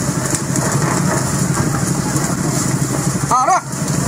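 A fishing boat's engine running steadily under the hiss of splashing water spray, with a brief shout from one of the fishermen about three and a half seconds in.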